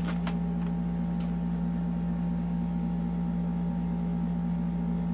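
Steady low hum, like a fan or other room machine, with a few faint clicks as the packaging and a paper leaflet are handled.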